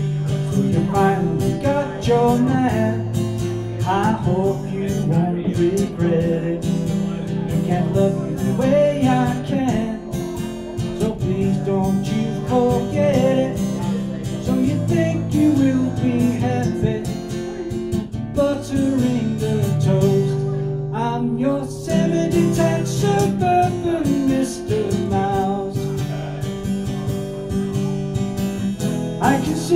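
Acoustic guitar strummed, with a man singing along.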